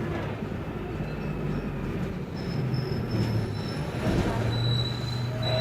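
Bus running with a low steady drone that strengthens about four seconds in, with two faint, thin, high-pitched squeals in the middle and near the end.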